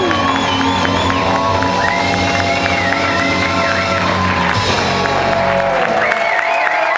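Live rock band playing while the audience cheers, whoops and whistles; the band's bass and sustained tones stop about six seconds in, leaving the crowd cheering.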